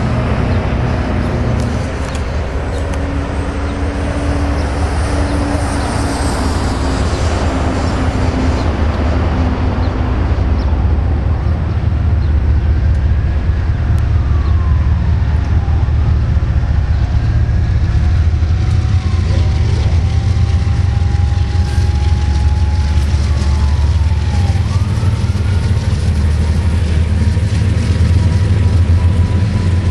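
BNSF diesel freight locomotives working hard up a grade, a loud, steady, deep engine drone. As the empty intermodal flatcars roll past, high wheel squeals rise and fall from about twelve seconds in.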